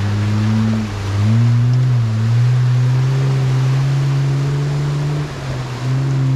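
A motor vehicle's engine running under way, its steady hum dropping briefly about a second in, two seconds in and near five seconds in, each time coming back a little higher, over road or wind noise.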